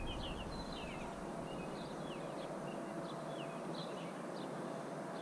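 Birds chirping: short, high, falling chirps repeated irregularly over a steady outdoor hiss.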